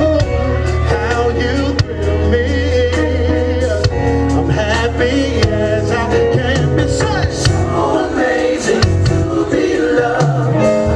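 Live band playing a slow soul ballad under a male lead singer, with a steady bass line and regular drum hits.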